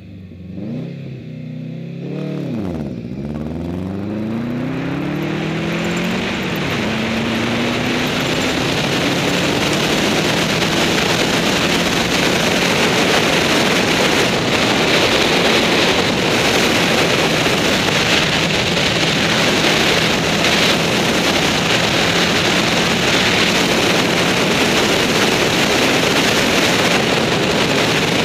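Rally car engine accelerating hard from a standing start. It revs up and drops back with each of several quick gear changes over the first few seconds. It then settles into a steady, loud rush of engine, tyres on gravel and wind as the car runs at speed on a dirt road.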